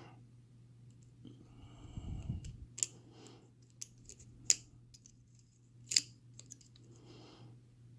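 Lock pick working the pins of an American Lock 5200 padlock: scattered sharp metallic clicks, the loudest about three, four and a half and six seconds in, over a faint steady hum.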